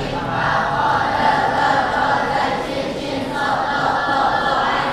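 A group of students chanting in unison, reciting the list of Arabic letters (the huruf mabani) aloud together as a drill.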